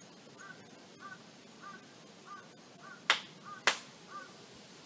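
Two sharp hand claps about half a second apart, the two claps of a prayer at a Shinto shrine. Behind them a bird calls repeatedly: seven short chirps, evenly spaced.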